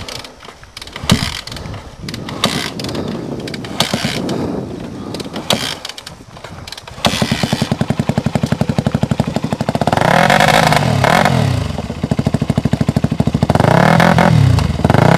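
Stalled dirt bike stuck in a mud hole: several seconds of irregular clunks and knocks while the rider tries to restart it, then about seven seconds in the engine fires and runs, revving up and down a couple of times.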